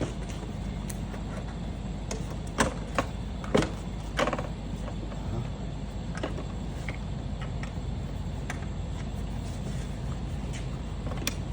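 Several sharp clicks and knocks, about two to four seconds in, followed by lighter ticks, from the air filter housing and plastic engine covers being handled and refitted. A steady low hum runs underneath.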